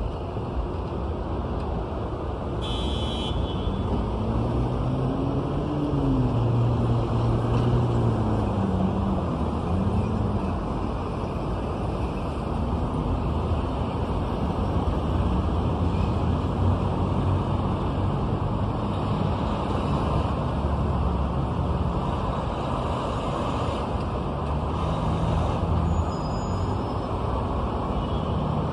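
Busy city street traffic heard from above: a steady hum of cars and trucks. A few seconds in, one vehicle's engine rises and then falls in pitch, just after a brief high squeal.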